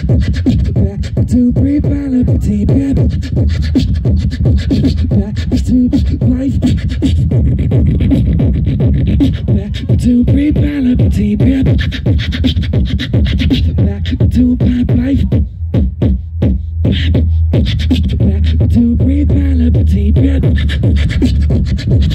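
Live beatboxing into a microphone: a fast beat of mouth-made kick, snare and hi-hat sounds over a deep held bass, with a hummed vocal melody woven in. About two-thirds of the way through, the beat thins out for a couple of seconds under the bass before coming back.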